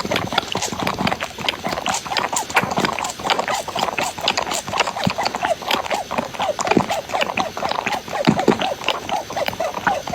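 Several kittens mewing in short, overlapping calls, with many small clicks and taps throughout.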